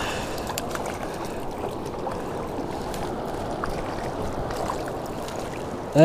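Steady rushing of a river running high under a full dam release, with a few faint ticks.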